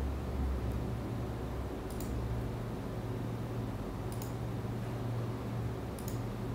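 Quiet room tone with a steady low hum, and a few faint clicks about two seconds apart from a laptop's keys or trackpad being pressed.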